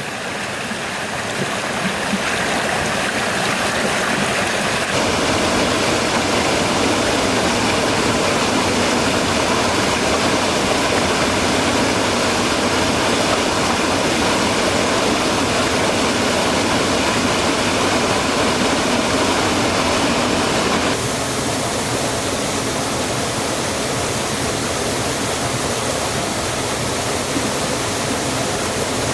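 Rushing water of a highland stream or waterfall, a loud, steady rushing noise that shifts in character abruptly about five seconds in and again about two-thirds of the way through.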